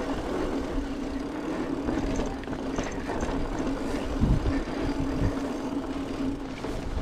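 Steady rolling rumble of a downhill ride, with a low hum and two heavier knocks about four and five seconds in.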